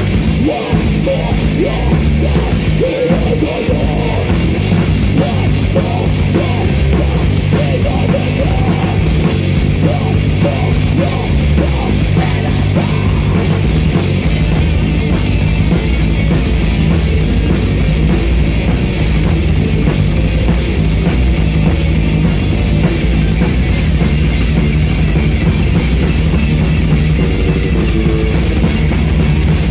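Live heavy metal band playing loudly, drum kit driving under the guitars and bass.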